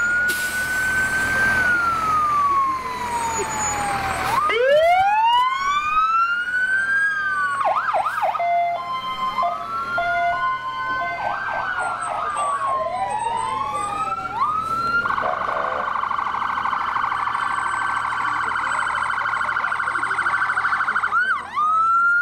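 An emergency vehicle siren cycling through its tones. It starts with a slow wail rising and falling, has short bursts of fast yelp twice in the first half, and changes to a fast, steady warble for most of the last third before climbing back into a wail near the end.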